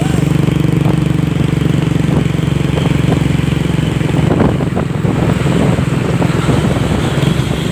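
Truck engine running with a steady low rumble that turns rougher around the middle, with no horn sounding.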